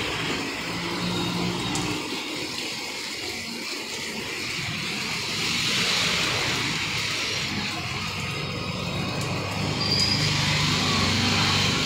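Heavy rain pouring onto a street, a steady hiss, with cars and a three-wheeled goods carrier driving past through the water on the road. The hiss of tyres on the wet road swells about six seconds in and again near the end.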